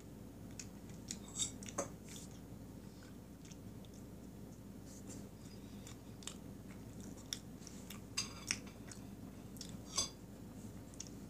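Close-miked eating of soft cake: quiet chewing and small mouth clicks, with a few sharp clinks of a metal fork against a plate, the loudest near the end.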